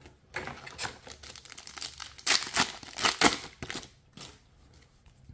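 Foil wrapper of a MetaZoo Native trading-card booster pack being torn open and crinkled. A run of crackly rustles lasts about four seconds and is loudest past the halfway point.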